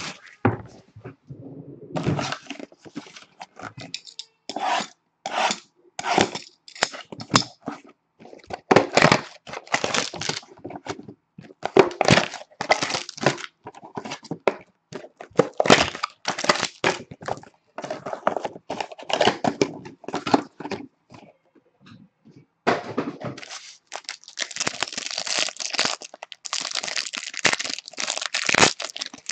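A cardboard box of Panini Absolute football cards being opened and its plastic-wrapped packs torn open by hand: irregular crackling, tearing and crinkling. A denser stretch of wrapper crinkling comes near the end.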